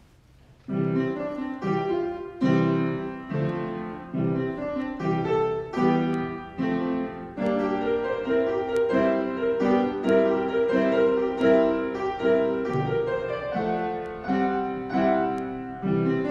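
Piano playing chords that begin about a second in, each note struck and fading, in a slow steady succession.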